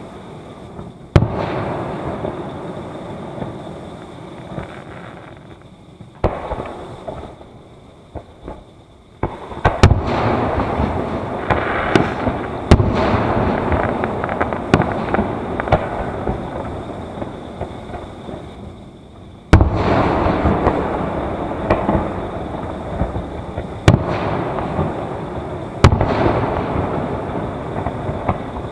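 Fireworks going off: a series of sharp booms, each followed by a long fading crackle, with smaller pops between them. The bangs come irregularly, a few seconds apart, and the densest stretch is from about ten seconds in until about nineteen.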